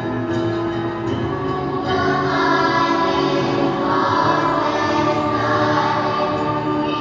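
School children's choir singing a piece in harmony, with long held notes; the voices swell fuller and brighter about two seconds in.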